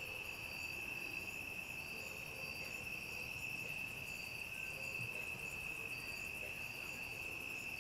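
Night chorus of crickets and other insects: a steady high trill, with short chirps repeating in a regular rhythm above it.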